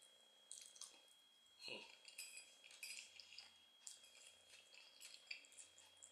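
Faint eating sounds: soft chewing and mouth noises with light, scattered clicks and scrapes of a metal fork on a plate.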